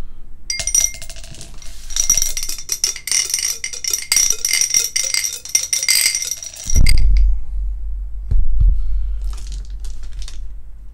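A die rattled hard inside a pint glass, a rapid clinking with a glassy ring, for about six seconds. Then a heavy thump on the table as the roll is thrown, followed by a few lighter knocks.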